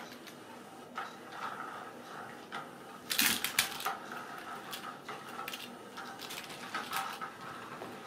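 Kittens scuffling and scratching with their claws on an upholstered sofa and sheepskin rug as they bat at a string toy, with scattered clicks and scrapes and a louder flurry about three seconds in.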